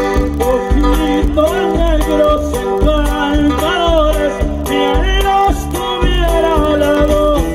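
Norteño band playing live: an accordion melody over a steady bass and drum beat.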